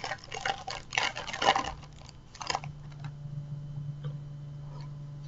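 Plastic wrapper of a Match Attax trading card packet being torn open and crinkled, a dense crackle that stops about two and a half seconds in, leaving a steady low hum with a few faint ticks.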